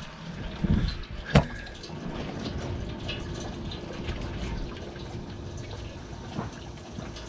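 FPV racing quadcopter crashing onto a wooden deck: a low thump, then a sharp hard knock about a second and a half in, followed by steady low noise as it lies still.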